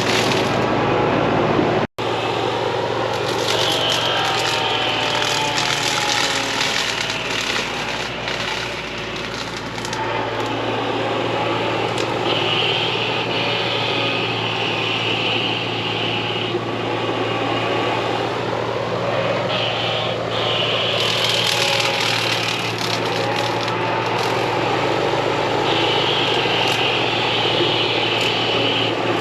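Kubota KX40 mini excavator's diesel engine running steadily under hydraulic load while trimming peach tree branches, with a high whine that comes and goes several times and shifting pitches as the boom works. The sound cuts out for an instant about two seconds in.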